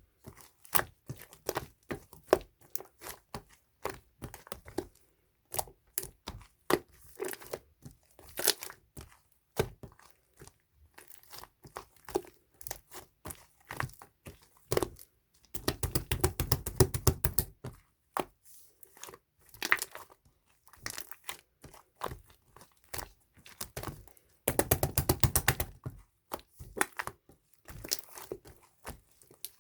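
Opaque chalaengi slime being handled: sticky clicks, pops and tearing crackles as it is pressed, stretched and pulled apart. Twice, about halfway through and again near the end, a quick run of rapid popping clicks lasting a couple of seconds.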